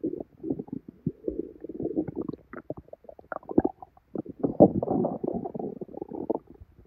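Stomach gurgling and bubbling from a bloated, painful belly: a string of short pops, then a louder, denser gurgle lasting nearly two seconds past the middle.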